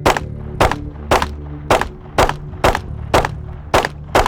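Compensated 9mm Glock 43X pistol firing a steady string of about nine shots, roughly two a second.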